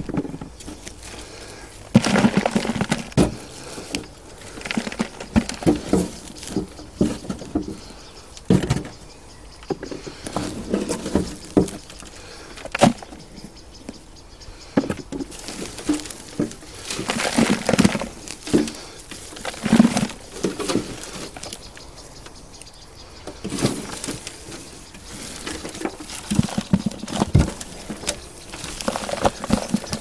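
Hands rummaging through potting compost in a pot to find potatoes: irregular rustling and crumbling, with scattered knocks.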